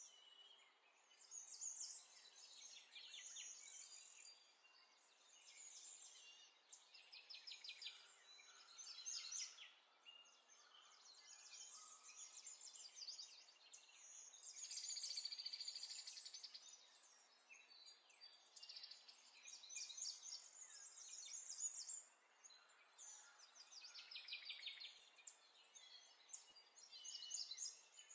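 Wet squelching and crackly rustling of hands mixing marinade into raw chicken pieces and sliced potatoes on baking paper, coming in short irregular bouts.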